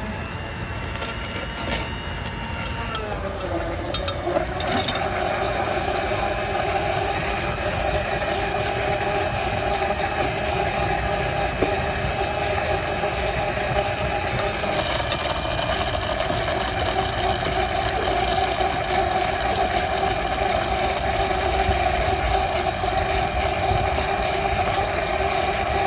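Countertop blender running at high speed, blending watermelon into juice. Its motor pitch rises a few seconds in, holds steady, then winds down right at the end.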